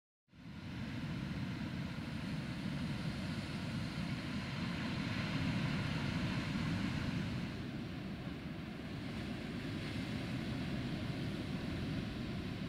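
Cat 314D track excavator's diesel engine running steadily with its working noise, fading in just after the start.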